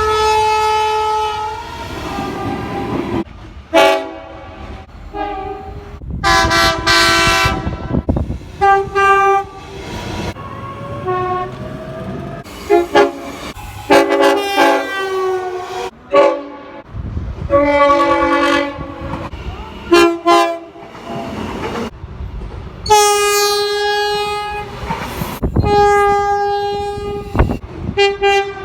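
Train horns sounding blast after blast, short toots and longer blasts of two to three seconds, each a chord of several tones, with the rumble of the train underneath. The chord changes abruptly from one blast to the next, as several different horns are heard in quick succession.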